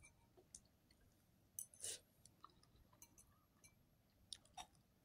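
Near silence with a few faint, short clicks from eating, the clearest a small cluster just under two seconds in.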